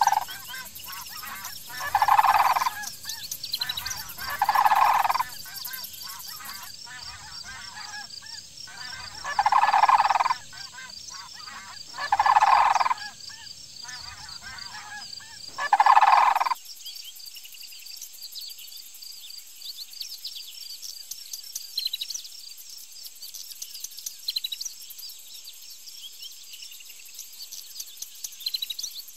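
Sandhill cranes calling: about five loud bugling calls, each under a second long and a few seconds apart. Near the middle the calls stop, leaving faint insect buzzing and small bird chirps.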